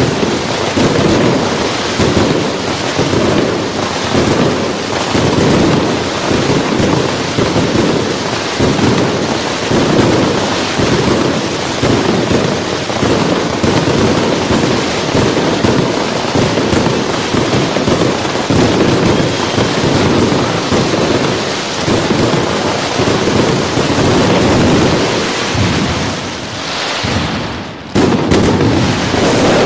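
Fireworks going off in a dense, unbroken barrage of rapid bangs and crackles that blur into a rumble. Near the end it eases for a moment, then resumes with a sudden loud burst.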